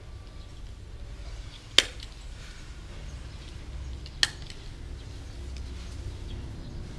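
Small nail clipper snapping shut twice, about two and a half seconds apart, as it trims a baby monkey's nails; two sharp clicks over a low steady hum.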